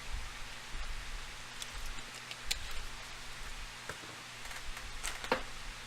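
Steady background hiss with a low hum, broken by a few short, sharp clicks, the clearest about two and a half seconds in and again near the end.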